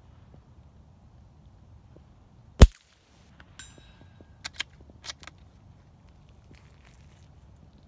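A single suppressed .22LR shot from a bolt-action Ruger American rifle fitted with a GSL Pill Box wipe-type suppressor: a sharp crack. About a second later a steel target rings briefly as the bullet hits it, followed by a few metallic clicks of the bolt being worked.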